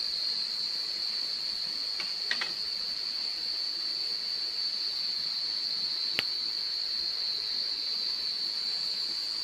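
Steady high-pitched drone of night insects in the forest. A few faint clicks about two seconds in, and one sharper click a little past the middle.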